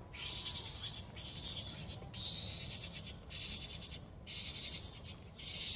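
Insects buzzing in a high, hissing chorus that comes in pulses of about a second with short breaks between.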